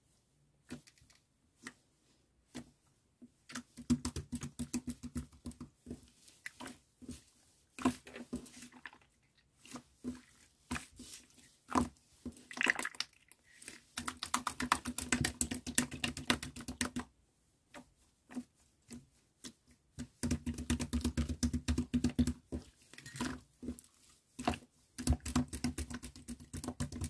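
Clear jelly slime being kneaded and squeezed by hand, giving quick wet clicking and popping sounds. The clicks come in dense runs of a few seconds, with sparser single pops in between.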